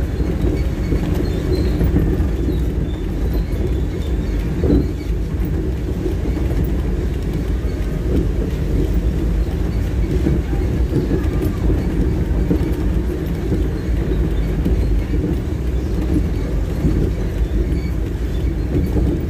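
Ambulance engine and road noise heard from inside the cabin as it drives slowly, a steady low rumble, with a single brief knock about five seconds in.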